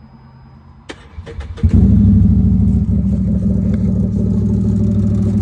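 Can-Am Commander side-by-side starting: a click about a second in, brief cranking, then the engine catches and runs steadily and loudly through its new MBRP slip-on exhaust.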